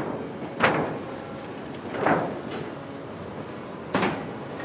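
Cat 320C hydraulic excavator running while its bucket and thumb crush the corrugated steel of a collapsed grain bin, with three loud metallic crunches, each fading away.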